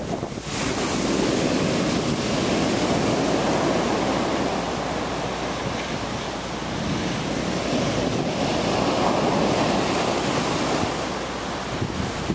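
Storm surf at high tide: heavy waves breaking on a rock revetment and beach in a continuous wash that swells as sets crash in, with wind on the microphone.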